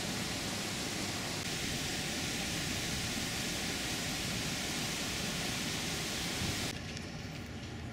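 Steady hiss of outdoor background noise, changing suddenly to a quieter background near the end.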